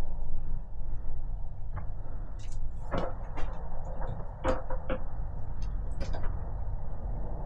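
Footsteps crunching over scattered debris: a string of short sharp cracks and snaps starting about two and a half seconds in, over a steady low rumble.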